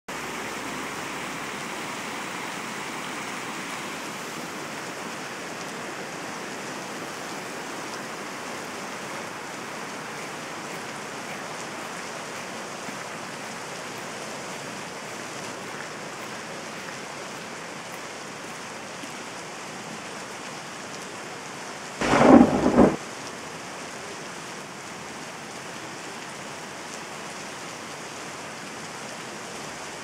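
Rain and thunder sound effect: a steady hiss of rain, with one short, loud crack of thunder lasting about a second, some two-thirds of the way through.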